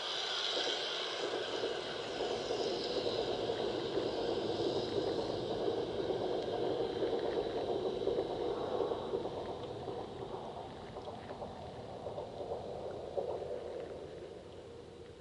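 Water heard through a submerged camera: a steady, muffled rushing noise that grows quieter over the last few seconds.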